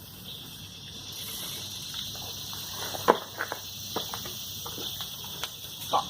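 Steady high chirring of insects, with several short, sharp clicks in the second half.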